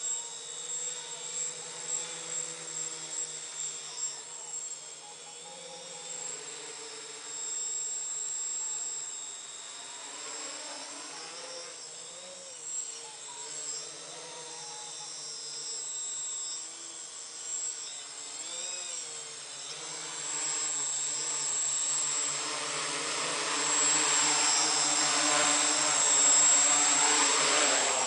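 Electric multirotor's motors and propellers whirring in flight, the pitch wavering up and down as the motor speeds change. It grows louder over the last several seconds and then cuts off suddenly.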